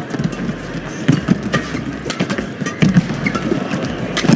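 Badminton rally: rackets striking the shuttlecock in a quick exchange, sharp irregular clicks roughly every half second, over the low hum of an arena crowd.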